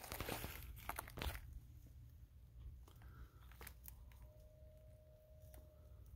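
Footsteps crunching on dry gravel and dead leaves for about the first second and a half, then quiet with a few faint clicks and a faint held tone about two-thirds of the way through.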